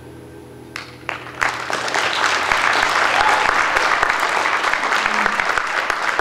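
The last chord fades out, then a few claps about a second in grow quickly into full audience applause.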